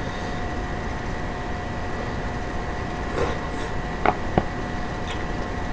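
Steady background hum and hiss, with two light clicks about four seconds in: chopsticks tapping against a plastic food container.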